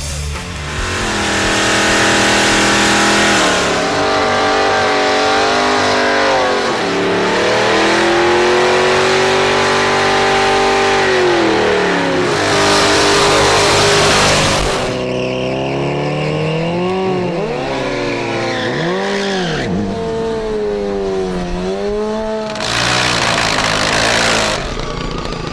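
Drag race car engines revving up and down over and over, with three loud spells of tire noise from burnouts or launches.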